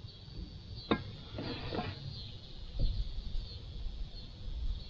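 Fishing rod and reel handled in a small boat: a sharp click about a second in, a brief rustle, and another click a couple of seconds later, with faint bird chirps.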